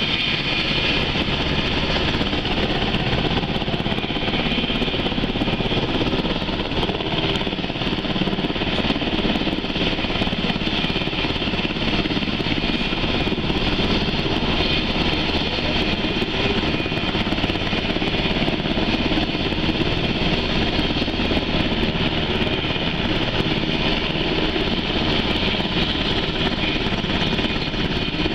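Sikorsky UH-60 Black Hawk helicopter running on the ground with its rotors turning. Its twin turboshaft engines give a steady high whine over the low, rapid beat of the rotor.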